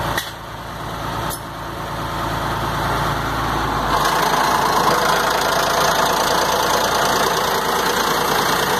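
Piston water pump, freshly rebuilt with new packing rings, running with its drive, a steady mechanical run. It grows louder over the first few seconds, then holds steady from about four seconds in.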